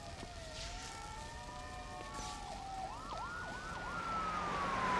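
Emergency-vehicle sirens in a film soundtrack. One slow wail rises and then falls, with a few quick yelping sweeps in the middle, over a noisy background, and it grows louder toward the end.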